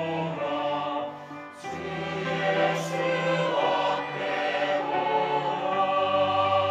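Mixed church choir singing a hymn refrain in Korean, in sustained chords with piano and string accompaniment. There is a short break between phrases about a second and a half in.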